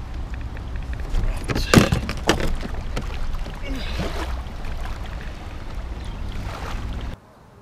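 Electric trolling motor on a Minn Kota–powered kayak running, a steady low hum that cuts off abruptly near the end. Two sharp knocks come about two seconds in.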